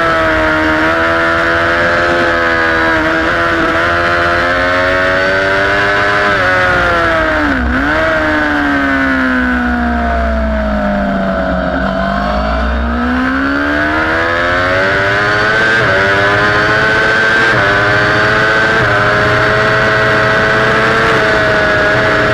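Racing sport motorcycle engine heard from onboard, held at high revs. A little over seven seconds in the revs drop sharply and keep falling for a few seconds as the bike slows into a corner, then climb back under acceleration, with two quick upshifts a couple of seconds apart before it holds high revs again.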